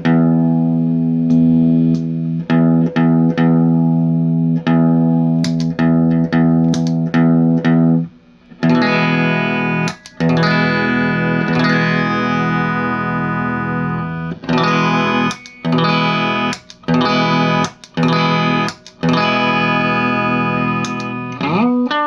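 Electric guitar played clean through a Fender-style tube amp. Ringing chords with short breaks come first, then after a brief gap a long held chord, then short choppy chords.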